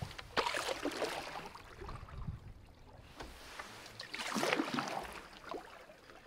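Wooden canoe paddle strokes in the water: two splashing, swishing pulls, the first about half a second in and the second about four seconds in.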